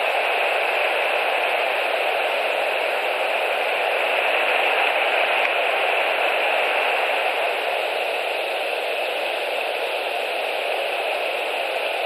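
Steady static-like hiss from the nest camera's microphone, unchanging throughout.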